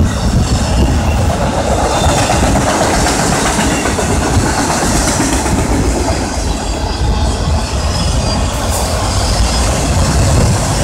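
Freight train of autorack cars rolling past: the loud, steady noise of steel wheels running on the rails.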